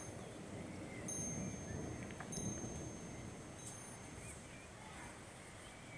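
Wind blowing ahead of a thunderstorm, a steady low noise, with a thin high ringing tone held for several seconds from about a second in, and a few faint chirps.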